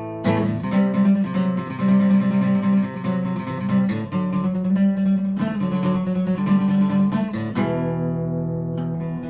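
Acoustic guitar playing an instrumental passage of a song: quick strummed and picked notes. Near the end it settles on a chord that is left to ring.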